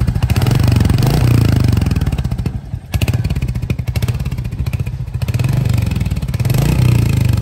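Royal Enfield Hunter 350's single-cylinder engine running through its stock exhaust with a good thump, the revs rising and falling, easing off about a third of the way in and building again near the end.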